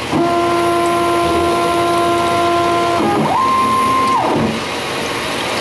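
Stepper motors of a CNC-converted Grizzly G0602 lathe whining as they drive the carriage through threading moves on aluminum stock, with the spindle running. A steady whine holds one pitch for about three seconds and stops. After a short pause comes a briefer, higher whine that rises in pitch, holds and falls away.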